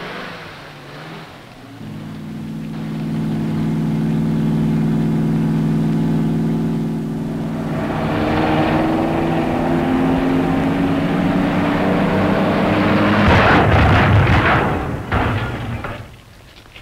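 Old car's engine running and speeding up, its pitch climbing, then a loud crash about thirteen seconds in as the car hits a barrier in an impact test, followed by a few clattering knocks.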